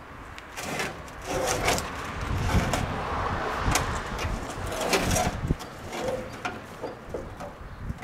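Irregular knocks, scrapes and clatter, densest between about one and five and a half seconds in, then a few scattered knocks.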